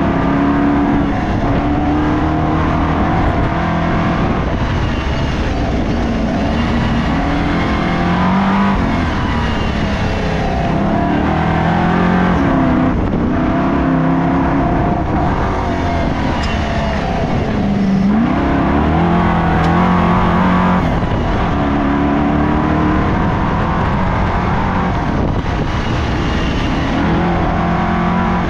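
Race car engine running hard without a break, its pitch climbing and dropping every few seconds as the driver accelerates, lifts off and changes gear.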